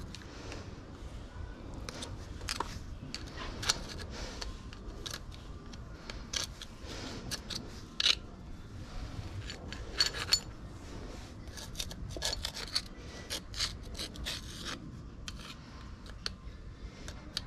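Irregular scraping, rubbing and sharp clicks of hand work on an Audi A8 air suspension strut being taken apart, with a few louder clicks about four, eight and ten seconds in.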